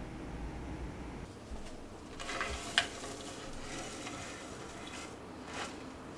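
Packaging crinkling as an advent calendar box is handled and opened, with a sharp click in the middle of it and a softer click near the end.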